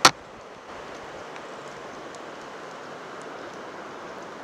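Steady hiss of water and surf washing over the shore rocks, with one sharp, loud click right at the start.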